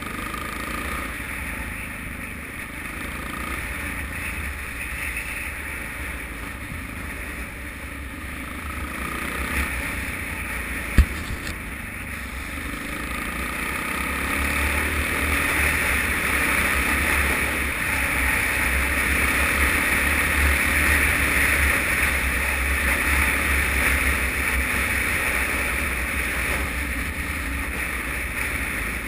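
Suzuki DR-Z single-cylinder four-stroke motorcycle riding on the road, its engine rumble mixed with wind rushing over a helmet-mounted camera. The rush grows louder about halfway through and eases near the end, and there is one sharp knock about eleven seconds in.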